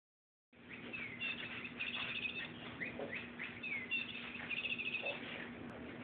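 High bird-like chirps and rapid trills, short falling notes followed by a quick warble, repeating much the same phrase twice.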